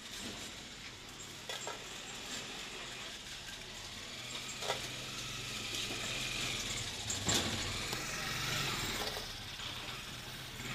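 Thin plastic bag crinkling and rustling as a hand rummages in it for crisp fuchka shells, with a few sharp clicks, over a steady low street hum.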